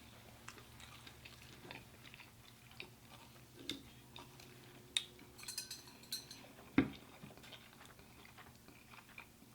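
Quiet chewing with scattered short clicks and taps of cutlery against dishes, the sharpest about five and seven seconds in.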